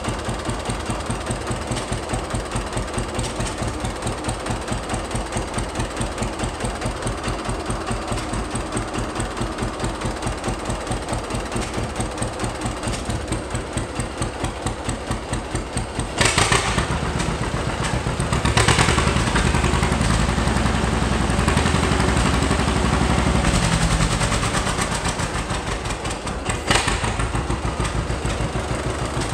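John Deere A tractor's two-cylinder engine running with an even, slow popping beat, on a freshly rebuilt carburetor with new jets and drilled-out passages. About 16 seconds in it turns louder for roughly ten seconds, then settles back to its steady idle.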